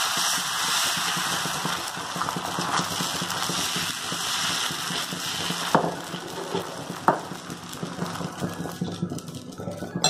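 Wheat dosa batter sizzling on a hot dosa pan as a steel ladle spreads it in circles, the ladle scraping over the pan. The sizzle fades over the second half, with two sharp clicks about six and seven seconds in.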